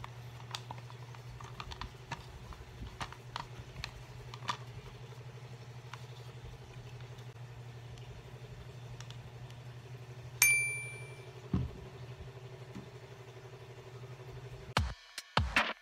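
Glass oil dispenser bottle and its plastic flip-top lid being handled: small clicks and scrapes over a steady low hum. There is one sharp glass clink that rings on briefly about ten seconds in, and a few knocks near the end.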